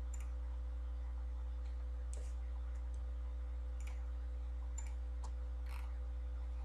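Computer mouse clicking: about half a dozen single clicks at irregular intervals while working in a CAD program, over a steady low electrical hum.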